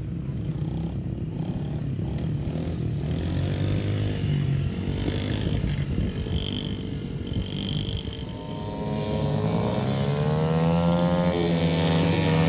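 Yamaha TT-R50 mini dirt bike's small single-cylinder four-stroke engine running as it is ridden. The throttle rises and falls, and the engine grows louder and higher in the last few seconds, with a second small bike's engine under it.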